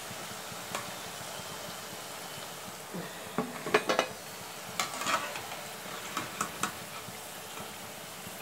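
Oil sizzling steadily around thattai (flat rice-flour crackers) deep-frying in a metal wok. A slotted metal spoon clinks and scrapes against the wok and plate as the fried crackers are lifted out, in a few quick knocks about three to four seconds in and again around five to six and a half seconds.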